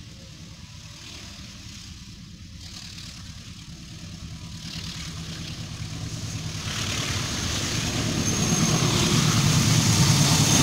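Diesel-electric locomotive hauling a passenger train approaching. Its low engine drone grows steadily louder, and the rumble of wheels on the rails builds over the second half as it draws level.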